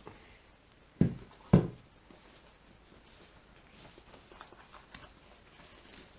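Two dull thumps about half a second apart as the motorcycle seat and its vinyl cover are handled, followed by faint rustling and small clicks.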